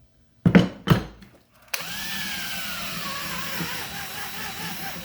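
Two sharp knocks, then a small power tool, like an electric drill, running steadily with a thin whine that slowly drops in pitch.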